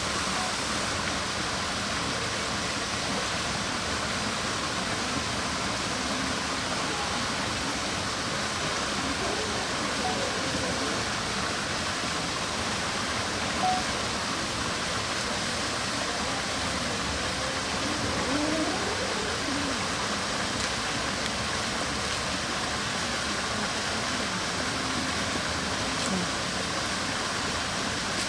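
Steady rushing background noise, with faint murmured voices now and then and a single sharp click about fourteen seconds in.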